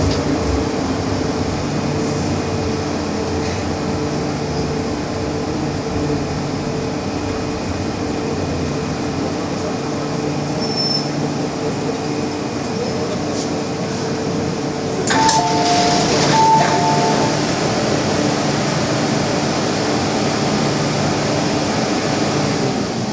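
MTR M-Train running in a tunnel: steady traction motor whine over wheel and track rumble, the whine fading as the train slows into a station near the end. About fifteen seconds in, a two-note chime, high then lower, sounds twice inside the car.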